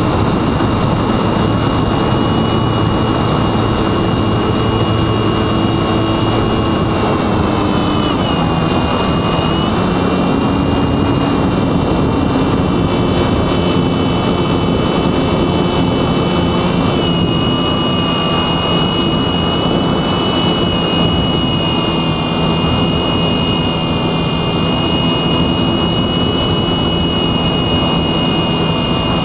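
Sunnysky X2220 brushless motor spinning a 9x7.5 propeller on an RC flying wing in flight: a steady high whine over a thick rush of air. The whine shifts pitch about 8 seconds in and again about 17 seconds in, as the throttle changes.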